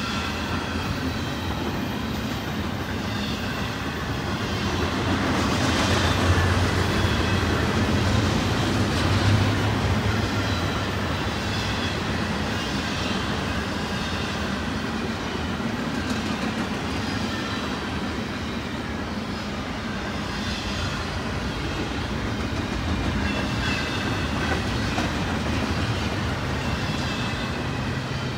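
Freight train's mostly empty intermodal double-stack well cars rolling past: steady rumble of steel wheels on rail with rhythmic clickety-clack, a few faint high whining tones over it, swelling louder about a quarter of the way through.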